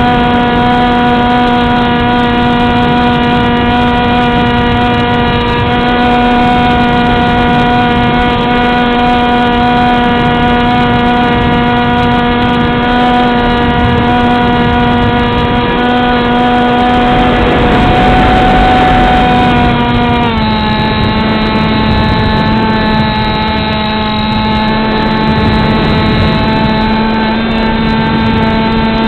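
Beta 1400 RC model plane's motor and propeller running steadily in flight, recorded by the onboard camera with wind rush over it. A rush of wind swells for a few seconds, and at about twenty seconds in the drone's pitch steps down a little and holds.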